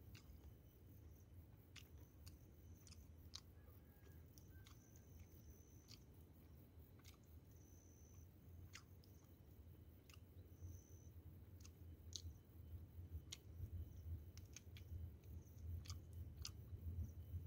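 Quiet close-up chewing, with scattered small wet clicks and smacks of a mouth eating, over a low steady hum.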